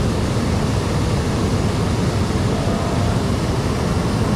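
Steady rumbling wind buffeting the microphone, over the rush of flowing river water.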